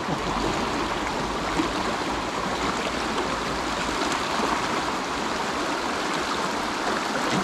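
Fast, shallow mountain stream rushing steadily over rocks and boulders.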